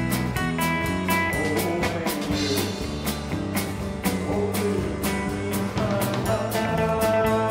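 Live rock band playing: strummed acoustic guitar, electric bass and a drum kit keeping a steady beat.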